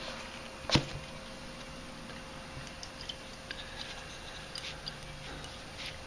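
Handling noise from a stop-leak can and its charging hose: one knock about a second in, then faint scattered clicks and taps, over a faint steady hum.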